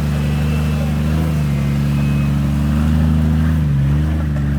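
Car engine running steadily, its pitch easing up slightly and then dipping near the end.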